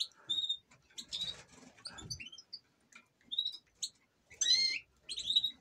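Caged canaries and European goldfinches chirping: short high call notes scattered throughout, with a longer warbled call a little past four seconds in.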